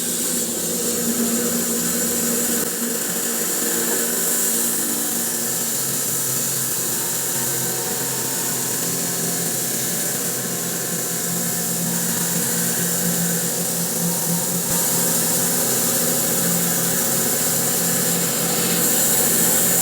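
Electric bandsaw mill running steadily as its carbide-tipped blade is pushed through a spalted maple log, cutting a slab. The sound gets a little louder near the end.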